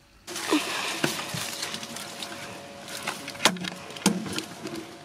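Leaves and palm fronds rustling and scraping close against the microphone as someone pushes through dense garden plants, with a few sharp knocks along the way.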